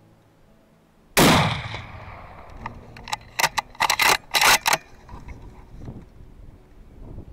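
A single hunting-rifle shot about a second in, loud and sudden, with a long rolling echo that dies away over a couple of seconds. A quick series of sharp clicks and knocks follows about two seconds later.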